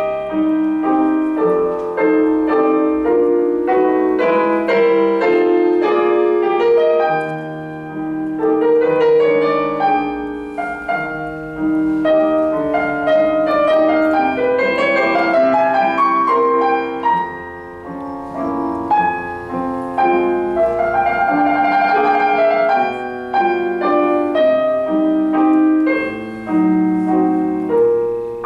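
Solo piano music played on a digital piano: a busy passage of many quick notes. It dips briefly in loudness about eight and eighteen seconds in, with a rapid trill-like figure in the upper notes a little past twenty seconds in.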